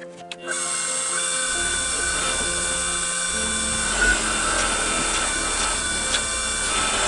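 King Industrial KWL-813VS variable-speed wood lathe running, a steady motor whine with hiss that comes in suddenly about half a second in. A few seconds later a cloth is pressed against the spinning bowl, buffing on a finish, and the rubbing adds slight swells.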